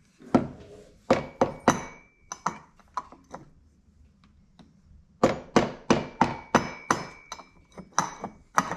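Light metallic taps on a stuck part of a Makita DCS6401 chainsaw, knocking it loose, each with a short ring. They come in a few irregular clusters at first, then as a quicker run of about a dozen taps over the last few seconds.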